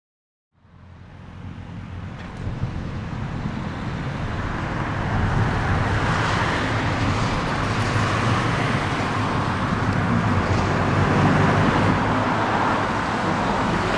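Steady city street traffic noise, fading in from silence over the first few seconds.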